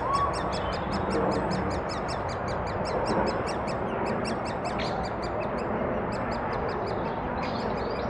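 Great spotted woodpecker nestlings begging from inside the nest hole: a rapid, unbroken run of short high-pitched calls, about six a second, over a steady rushing background noise.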